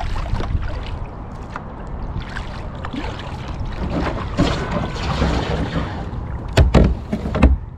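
Kayak paddle strokes splashing in the water, with wind rumbling on the microphone. Three sharp knocks near the end are the loudest sounds.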